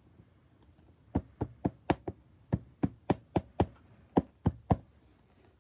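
About a dozen sharp knocks on a tabletop in quick succession, in three runs of five, five and three, over about three and a half seconds.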